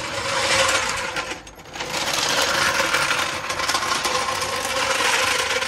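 Loud, rapid mechanical clatter from a machine, a dense run of fast clicks over a steady hum, easing briefly about a second and a half in, then running on and stopping abruptly near the end.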